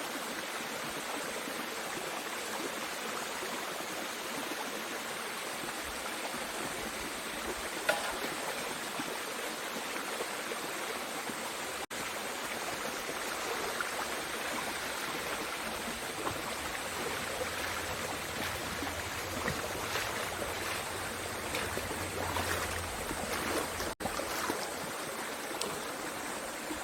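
Mountain valley stream flowing over rocks: a steady rushing of water, with a single knock about 8 seconds in.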